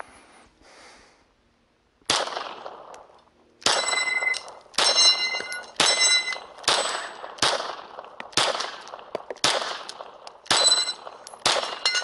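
Ten shots from a 9mm Walther Creed pistol, about one a second starting two seconds in. Most shots are followed by the ring of a steel plate on the Texas Star target being hit.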